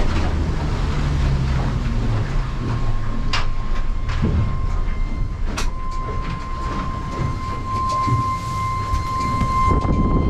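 Boat running under way: the low rumble of the Yamaha F300 outboard and the hull on the water, with a couple of sharp knocks. From about six seconds in, a steady high-pitched squeak joins and grows louder, which is taken to come from the tuna tube pump.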